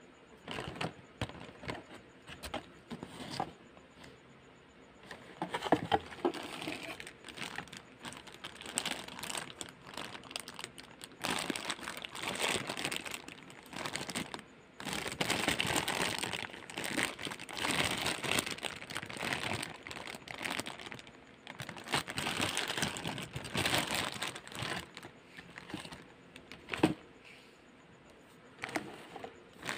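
Clear plastic packaging bags crinkling and rustling as they are handled, in repeated stretches with short pauses, with a couple of sharp taps.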